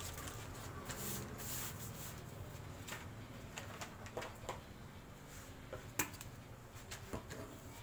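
Paper pattern being folded and smoothed flat by hand: soft rustling with a few short sharp crackles, the sharpest about six seconds in.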